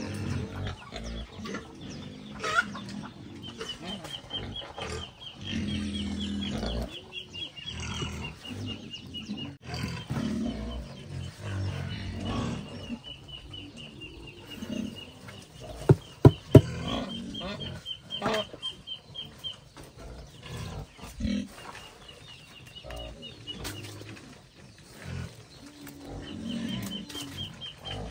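Chickens clucking, with long runs of a rapid, high ticking trill that come and go, and three sharp knocks a little past halfway.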